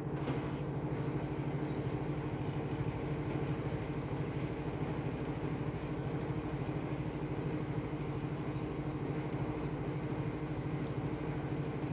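Washing machine in its spin cycle: the drum spinning at speed with a steady motor hum.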